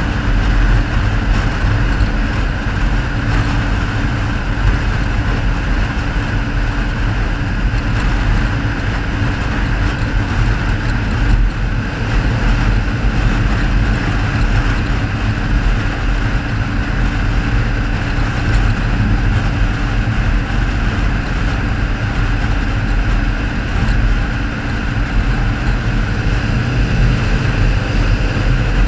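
A car driving at a steady pace: a continuous mix of engine, tyre and wind noise, with a brief dip in level near the end.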